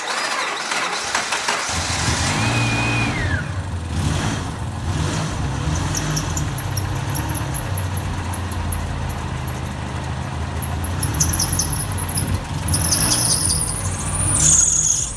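Subaru EJ25 SOHC 2.5-litre flat-four engine cranking and catching, then running at idle on its first start after a head gasket and rod-knock rebuild. A brief falling whistle comes about three seconds in, and from about six seconds on there is a repeated high-pitched squeak.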